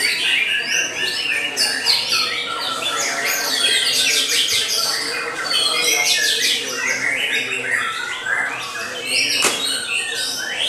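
White-rumped shamas singing in a dense, unbroken run of overlapping high whistles and rapid chattering phrases. A sharp click sounds about nine and a half seconds in.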